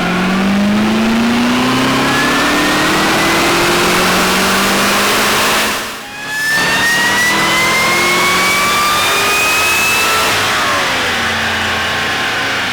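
Performance car accelerating hard at full throttle: engine note rising steadily with a high whine rising alongside it. There is a brief break about six seconds in, fitting a gear change. The engine pulls up again through the next gear and then falls in pitch as the throttle is lifted near the end.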